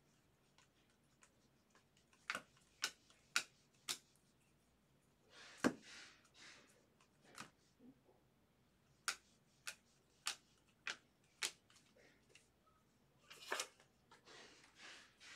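Baseball trading cards being flipped through one at a time by hand, each card giving a small sharp snap or click about every half second to second, with a couple of short rustles of card handling.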